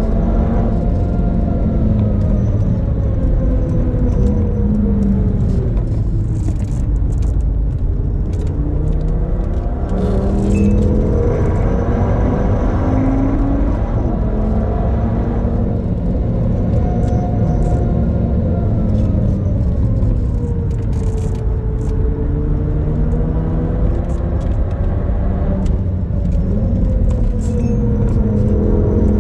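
A 2013 Audi TT RS's turbocharged five-cylinder engine, tuned to about 405 hp, working hard on a fast lap, heard from inside the cabin with road noise underneath. The engine note climbs under full throttle and drops several times as the driver lifts, brakes and changes gear for corners. A few brief sharp ticks cut through.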